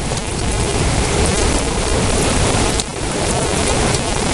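Heavy thunderstorm rain pouring down in a loud, steady wash of pattering drops, with a brief dip a little under three seconds in.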